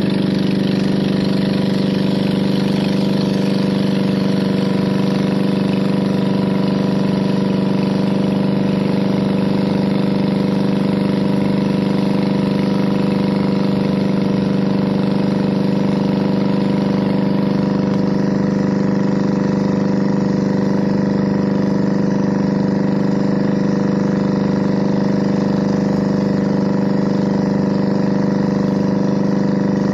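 Pumpboat engine running steadily while under way: one loud, even droning note that holds the same pitch throughout.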